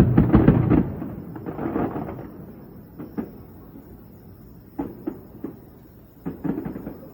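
Fireworks bursting overhead: a heavy boom at the start that dies away over about two seconds, then a scattering of sharper bangs later on.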